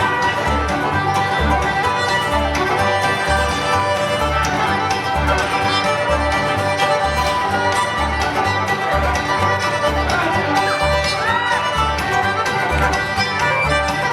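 Live bluegrass band playing, a fiddle carrying the tune over banjo and guitar, with low bass notes keeping a steady beat about twice a second.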